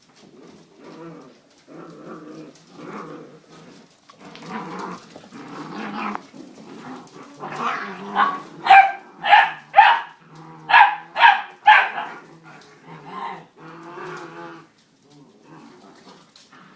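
Puppies growling in low, pulsing grumbles, breaking about halfway through into a run of roughly eight sharp, high yapping barks, then settling back to growls.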